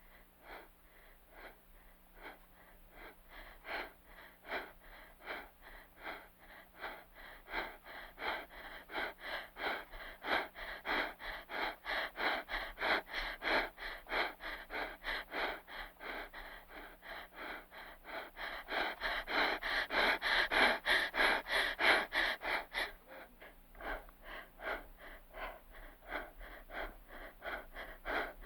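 A person breathing fast and hard in quick, even in-and-out breaths, about two a second. The breathing grows louder to a peak about three-quarters of the way through, then eases back.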